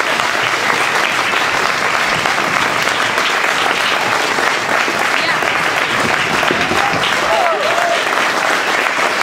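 Theatre audience applauding, with steady, dense clapping.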